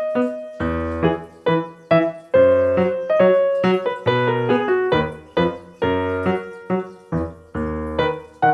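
Background solo piano music: a steady run of separate struck notes over low bass notes, several notes a second.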